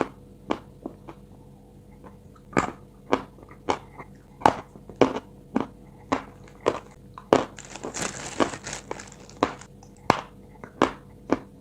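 A person biting and chewing small pieces of chalk: sharp crunches come about twice a second, with a longer gritty grinding stretch about two-thirds of the way through.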